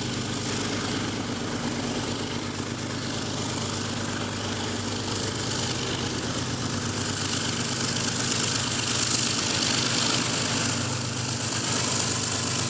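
An engine running steadily, a constant low hum, growing a little louder about two-thirds of the way through.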